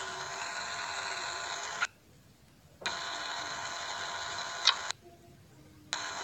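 Steady hiss and faint hum from an open microphone on a video call, switching abruptly on and off in blocks of one to two seconds, with a sharp click near the end of the second block.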